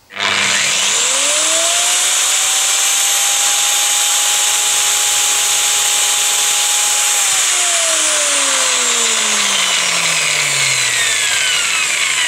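A 2.2 kW angle grinder, fitted with a pulley instead of a disc, is switched on. It spins up within about a second to a steady high whine, is switched off about seven seconds in, and winds down with its pitch falling slowly.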